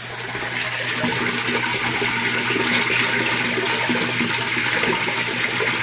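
Water gushing and splashing from a Fluval FX6 canister filter's outflow, building up over the first second and then running steady.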